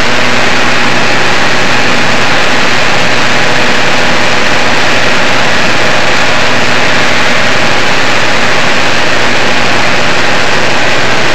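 Small propeller aircraft's engine and propeller running steadily in flight, heard loud from inside the cabin: a constant low hum under an even rushing noise.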